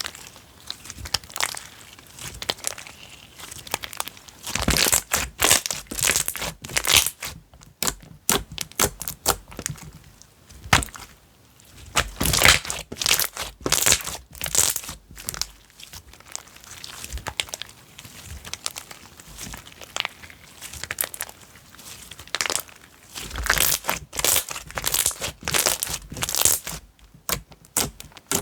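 Slime being squeezed and stretched by hand, making dense runs of sharp crackles and pops that come in bursts, with quieter stretches between.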